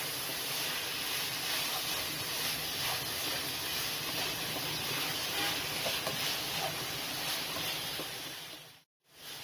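Shredded vegetables sizzling steadily in a hot non-stick pan as they are stir-fried with a wooden spatula, with faint scraping ticks from the spatula. The sound cuts out briefly near the end.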